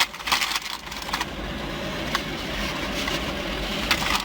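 Steady running noise of a car idling, heard from inside the cabin, with a few light clicks in the first second.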